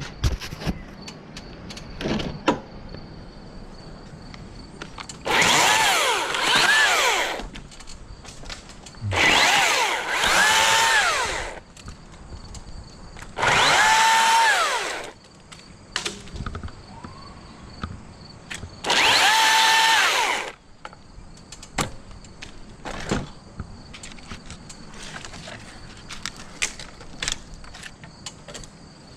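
A small electric motor runs in four short bursts of about two seconds each, its whine rising then falling every time, with scattered clicks and snaps between the bursts.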